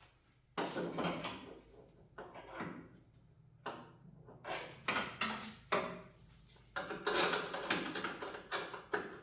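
Irregular metallic clanks and rattles of parts and tools being handled while the engine's motor mounts are bolted in, with a cluster of quick knocks in the second half.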